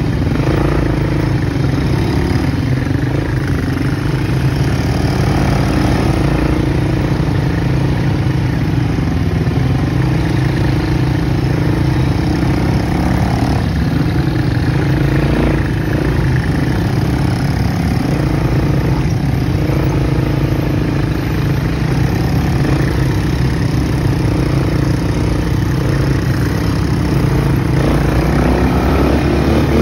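ATV (quad bike) engines running steadily while riding a dirt trail, the pitch shifting a little now and then.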